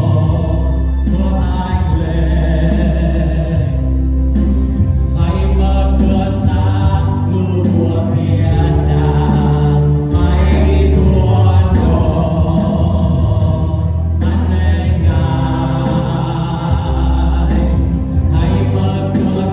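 Congregational worship song: a group of voices singing together over a band with strong bass and a steady beat.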